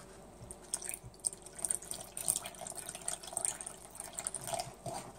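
Water trickling from a plastic measuring jug into a well of flour in a mixing bowl: a thin, faint stream with many small irregular splashes.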